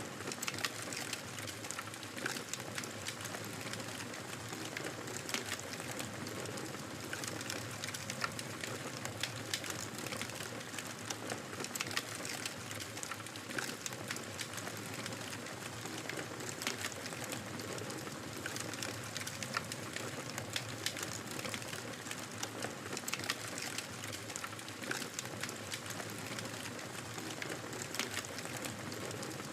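Fire crackling in a fireplace: a steady hiss dotted with frequent sharp pops and crackles.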